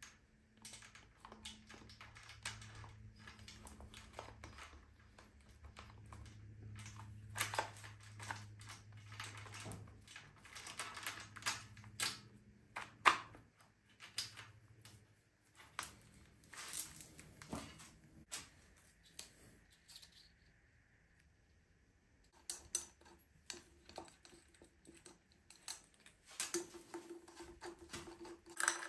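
Metal clinks and rattles of a timing chain and engine parts being handled on a bare BMW S38B36 engine block: scattered sharp taps, with a low hum under the first half. Near the end, a run of quick clicks as a water pump bolt is turned in with a hand tool.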